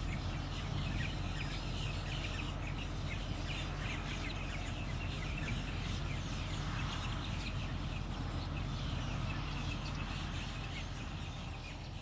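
Many short, high bird chirps over a steady low background hum.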